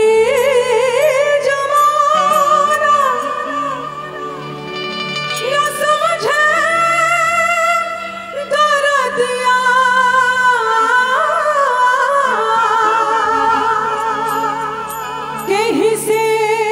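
A woman singing a Bhojpuri song through a stage sound system, with live band accompaniment.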